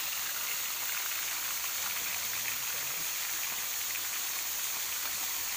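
Fish frying in hot oil in a wok over a wood fire: a steady sizzle with fine crackling.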